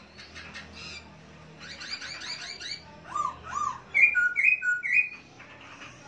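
Caged songbirds singing: a fast run of short chirping notes about two seconds in, then two loud arched notes and three clear whistled notes, each stepping down in pitch.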